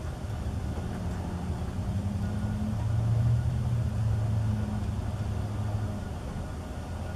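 A low engine hum, growing louder about three seconds in and easing off again near the end.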